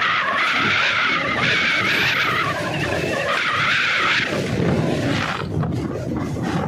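Passenger train's steel wheels screeching loudly on the rails, a wavering high squeal that stops about four seconds in, leaving the low rumble of the train rolling on.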